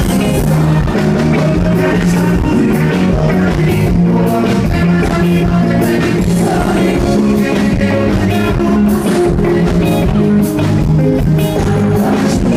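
Live sertanejo band music played loud through a stage PA, with a male voice singing into a microphone over the band.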